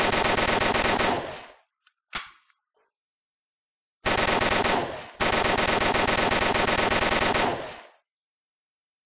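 MAT-49 submachine gun firing on full automatic in long rapid bursts. A burst ends about a second in and fades out, a single sharp click follows, and after a pause a second long burst breaks off briefly about five seconds in before running on and fading out.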